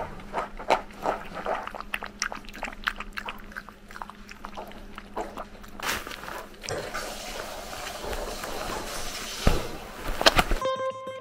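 A red toy poodle puppy lapping water from a stainless steel bowl: a quick, uneven run of wet clicks for about the first five seconds. Then a closer, noisier stretch of scuffling with a few sharp knocks as the puppy is right up against the camera. Acoustic guitar music comes in just before the end.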